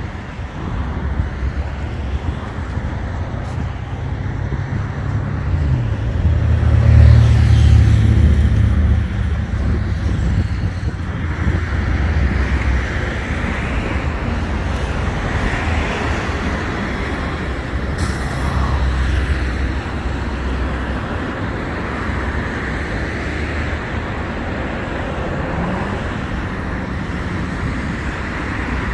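Steady road traffic rumble, with one vehicle passing loudly about seven seconds in.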